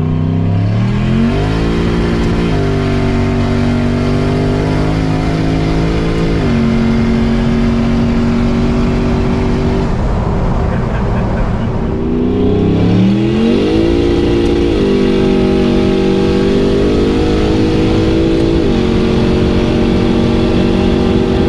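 Turbocharged 5.3-litre LS V8 in a 1993 Chevy 1500 pickup accelerating hard twice, about halfway through for the second time. Each time the engine's pitch climbs, then steps down at upshifts of the Turbo 400 automatic and holds steady.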